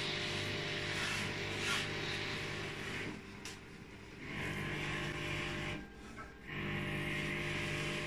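Thomas washing vacuum cleaner running with a steady motor hum, its upholstery nozzle sucking water and air out of wet chair fabric in strokes; the rushing suction noise drops briefly twice between strokes as the nozzle is lifted.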